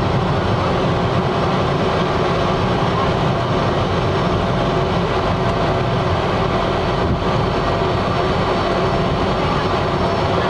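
Cessna Caravan's turboprop engine and propeller running steadily while the plane rolls along the runway, heard from inside the cockpit as a loud, even noise with a faint steady whine.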